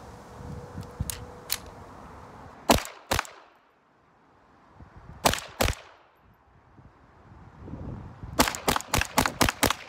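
Calico M110 .22 LR pistol: two light clicks as it is readied, then two quick pairs of shots, then a fast string of about eight shots at roughly five a second near the end.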